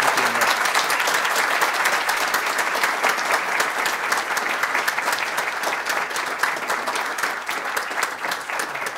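Audience applauding: many hands clapping together in a dense, steady patter that eases off slightly near the end.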